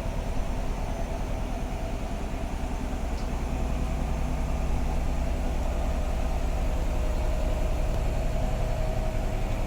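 Bosch WAT2846SIN 8 kg washing machine in its spin cycle: a steady low hum with a fast, even pulsing and a steady whine above it, getting a little louder about halfway through.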